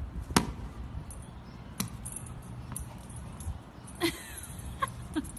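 A tennis ball bouncing on pavement in a few sharp taps, and a small puppy giving a couple of short yips near the end.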